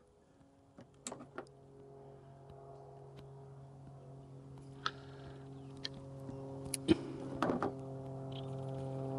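Scattered sharp clicks and snaps from a hand wire crimper and blue plastic butt connectors being worked onto fuse-holder wire leads, loudest near the end. Under them a steady low hum with several overtones fades in and slowly grows louder.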